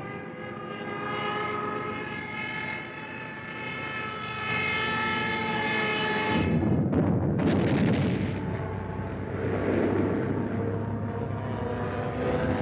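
Aircraft engines droning, a steady pitched hum. From about six seconds in it gives way to a heavy rumbling roar of bombing that swells and eases, with an engine's pitch falling near the end.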